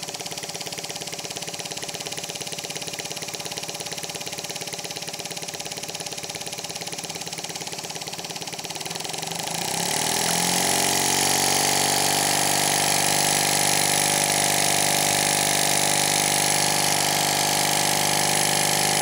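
Small single-cylinder slide-valve model steam engine running slowly with a fast, even beat. About halfway through, its throttle is opened and it speeds up, rising in pitch to a louder, steady faster run.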